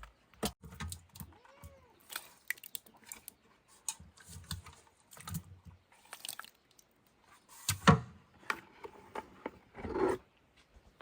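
Irregular knocks and scrapes of hand tools working wet cement, the two loudest about eight and ten seconds in.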